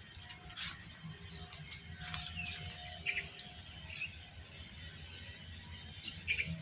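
A few short, faint bird chirps over a steady background hiss.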